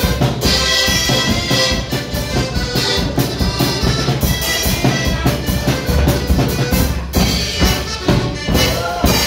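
Live folk dance band playing a polka: accordion over a drum kit keeping a quick, steady bass-drum and snare beat.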